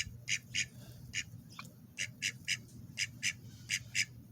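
Domestic ducks quacking in short, rapid calls, often in pairs, about two to three a second, with one short falling squeak about one and a half seconds in.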